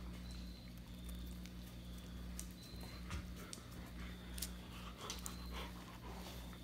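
Puppy's claws ticking and pattering on a hardwood floor with scattered small clicks, over a steady low hum.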